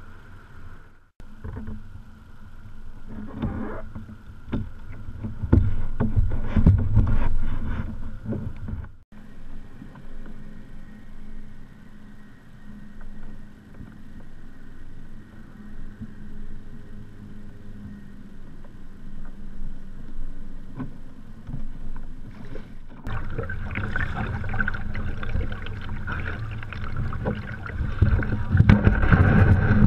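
Water sloshing against a plastic kayak hull, with wind on the microphone and knocks from handling on deck. Abrupt cuts come about a second in, near nine seconds and near 23 seconds. The last several seconds are louder, with paddle blades splashing.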